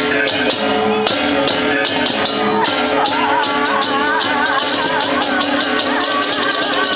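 Balinese gamelan music: fast, dense clashing of small cymbals over steady ringing metallophone tones, with a wavering high melody coming in about three seconds in.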